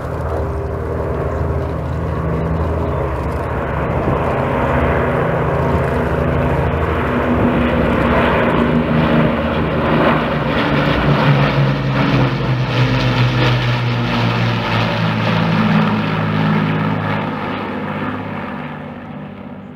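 Two Avro Lancaster bombers flying over in formation, their Rolls-Royce Merlin V12 piston engines droning. The sound swells to its loudest as they pass overhead in the middle, then fades toward the end.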